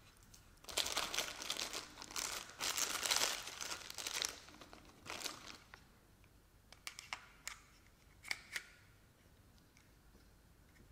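Plastic bag crinkling and rustling for about four seconds as small gauge parts are handled out of a tool case, then a few light clicks of small metal parts as a dial bore gauge is put together.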